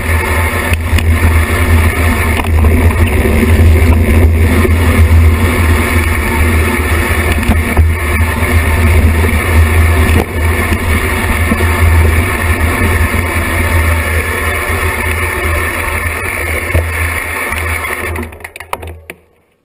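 Wind buffeting and the rumble of mountain-bike tyres on a dirt singletrack descent, picked up by a camera mounted on the bike. The sound fades out near the end.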